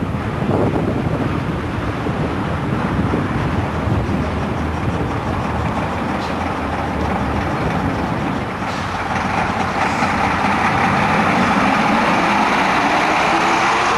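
Leyland National single-deck buses with Leyland 510 turbocharged engines driving past one after another. The first one's engine rumbles as it passes close by, then the next bus's engine grows louder from about nine seconds in as it approaches.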